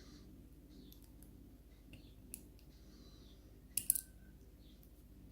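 Small metal lock pins clicking lightly as they are handled and set down while the pin-tumbler lock is taken apart: a few faint ticks, then a sharper double click about four seconds in with a brief metallic ring.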